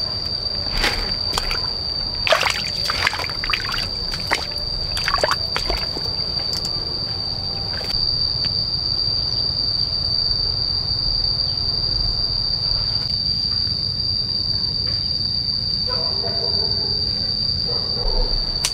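Steady high-pitched insect drone, with scattered clicks and rustles in the first few seconds.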